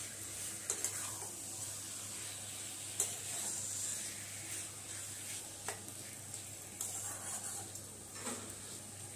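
Boneless chicken pieces sizzling in masala in a metal kadai as a spatula stirs and turns them, scraping and knocking against the pan several times, the sharpest knock about three seconds in. The chicken has just gone into the fried spice paste.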